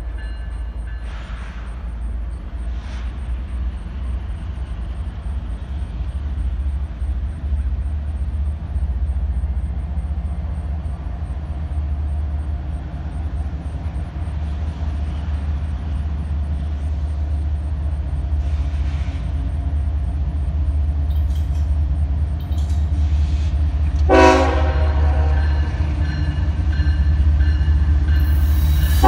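Diesel locomotives, CSX GE ES44AH units, approaching at a crawl: a steady low engine rumble that slowly grows louder. About 24 seconds in comes a short toot of the air horn, and another horn blast begins right at the end.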